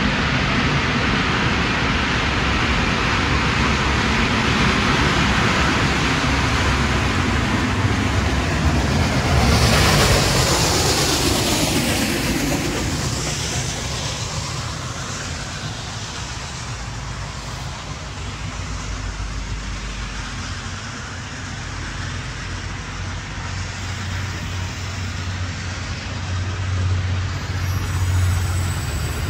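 A vehicle passing close by: a steady rumble that swells to a loud peak about ten seconds in, then falls away to a quieter rumble, with a low hum building near the end.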